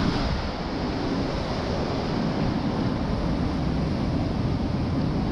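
Water rushing and splashing steadily around an inflatable raft tube sliding down a water slide, with wind rumble on the camera microphone.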